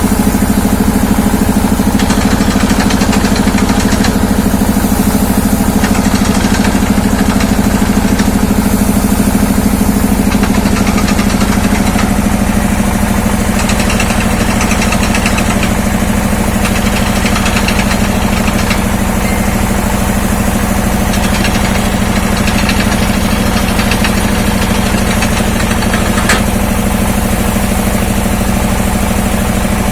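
Engine of an industrial well-drilling machine running steadily at constant speed.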